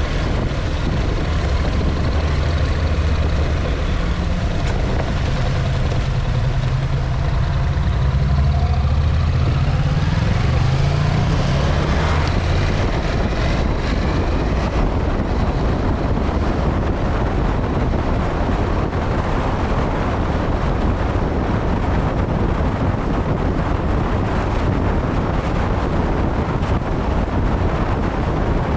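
Motor vehicle engine running while driving, its pitch rising about ten to twelve seconds in as it speeds up, after which a steady rush of wind and rumbling road noise covers it.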